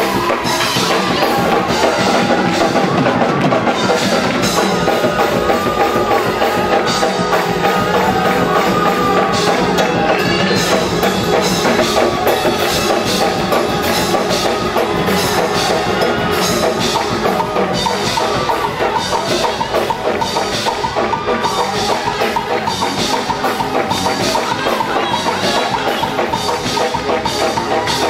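Live gospel praise music in a church sanctuary, with a drum kit keeping a steady beat under the band.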